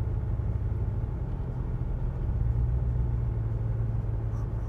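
Range Rover V8 engine idling steadily with a low rumble, heard from inside the cabin, as its dual-fuel system changes over from LPG back to petrol. On petrol the misfire on cylinders 8 and 4 clears. The rumble grows slightly stronger a little past halfway.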